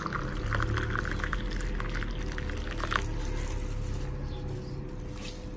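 Boiling water being poured into a cup, a steady splashing pour that fades about three seconds in.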